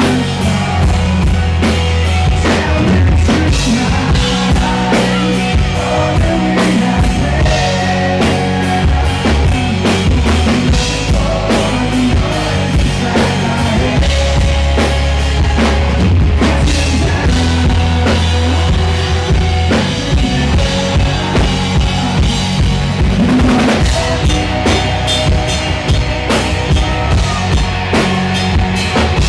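Live rock band playing loud, recorded from the crowd: a drum kit with bass drum and snare keeps a steady beat under a heavy bass line, with the lead singer's vocals on top.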